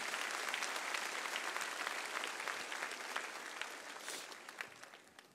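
A large congregation applauding, a dense patter of many hands clapping that dies away near the end.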